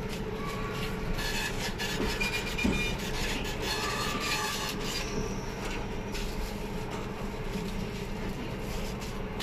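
Paper rustling and crinkling as rolled flatbreads are wrapped in paper sheets by gloved hands, busiest in the first half, over a steady mechanical hum.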